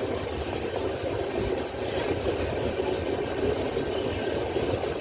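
Indian Railways passenger train running, a steady rumble of the coach and wheels heard from its open doorway.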